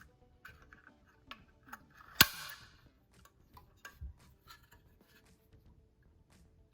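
Small clicks and ticks of a Ricohflex twin-lens reflex camera's metal parts and film spool being handled, with one sharp snap about two seconds in and a dull low knock a couple of seconds later.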